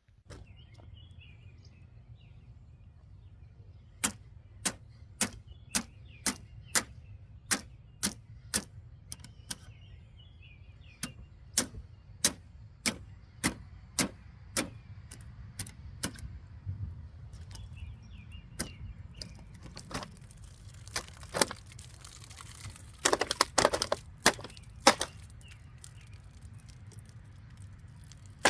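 A tiny pocket-knife blade struck again and again against a test material, making sharp clicks a little under two a second, then a quicker, louder cluster later on. The unsharpened blade only leaves marks and does not cut through, as the owner judges it.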